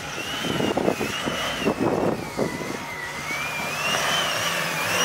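Toyota Hilux pickup driving over a rough rocky track: the running vehicle, with a run of knocks and jolts over the first couple of seconds and a thin wavering high whistle over it.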